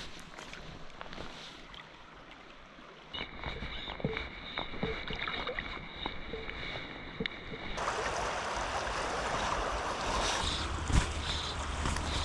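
Outdoor creekside sound: scattered light clicks and rustles with a steady high tone for a few seconds, then from about eight seconds in the steady rush of flowing water.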